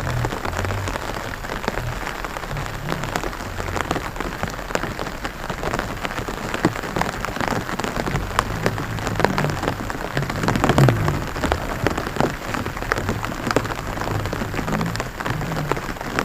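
Rain pattering on the water of a flooded rice paddy: a dense, steady spatter of drops.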